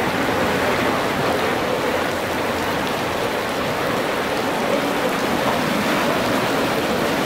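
Heavy rain falling on a flooded pavement, mixed with the rush of storm water welling up out of overflowing storm drains that cannot take the downpour; a steady, even hiss with no breaks.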